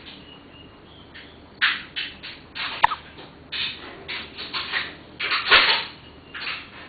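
A cat hiccuping: a string of short, breathy hiccups coming in quick irregular clusters, the loudest about five and a half seconds in.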